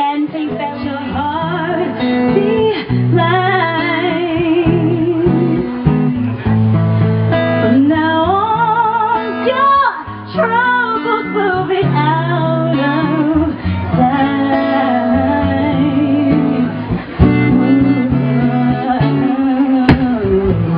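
A woman singing live into a microphone, her long held notes wavering with vibrato, accompanied by guitar.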